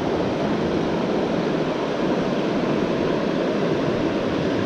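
Steady rush of a fast river running over rocks and rapids, an even noise that does not change.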